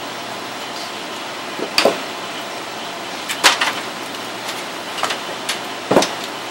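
Three short clunks as the UPS battery pack and casing are handled during a battery swap, about two seconds apart, over a steady hiss.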